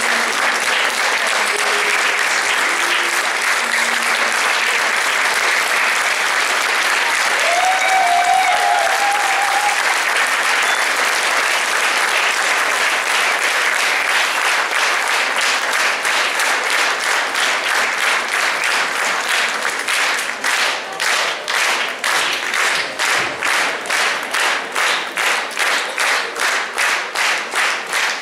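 Audience applauding. About twenty seconds in, the applause turns into rhythmic clapping in unison at about two to three claps a second.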